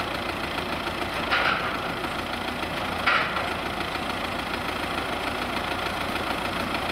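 An engine idling steadily with an even low pulse, with two short, higher-pitched noisy bursts about a second and a half and three seconds in.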